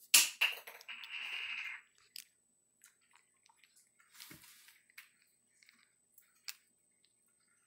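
Java macaque mouthing and drinking at the water in a plastic toy sink: sharp plastic clicks and knocks, a short hissing rush about a second in, then scattered faint wet taps and a soft thump.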